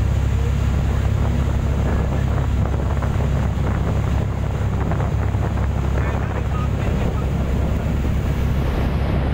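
Boat engine running steadily with wind buffeting the phone's microphone, a continuous low rumble.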